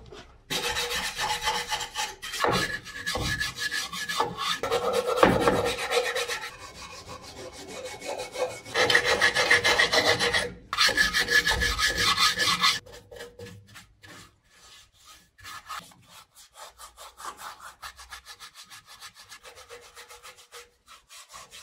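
Hand wire brush scrubbing surface rust mixed with dirt off the sheet-metal wheel arch of a VW LT 28 van, in quick back-and-forth strokes. The scrubbing is hard for the first half with a couple of brief pauses, then turns to lighter, evenly spaced strokes after about thirteen seconds.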